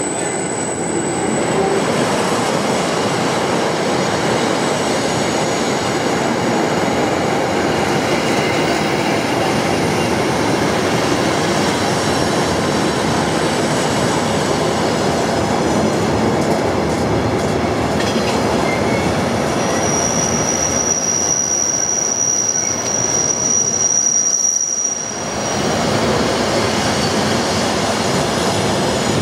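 Freight train of enclosed double-deck car-carrier wagons rolling past close by, its wheels running loudly and steadily on the rails. About twenty seconds in a high, steady wheel squeal sounds for several seconds.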